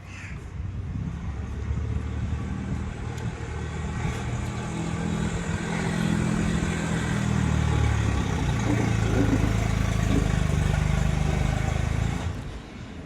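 A motor vehicle engine running, its pitch shifting, growing louder over several seconds and then dropping away about twelve seconds in.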